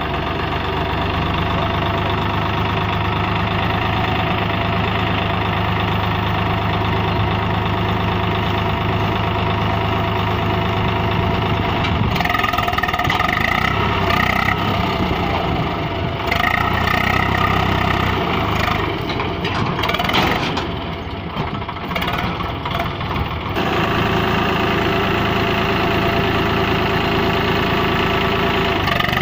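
Swaraj 744 FE tractor's three-cylinder diesel engine running steadily while its hydraulics tip a loaded trolley. The engine note shifts in the middle and dips briefly about three-quarters of the way through.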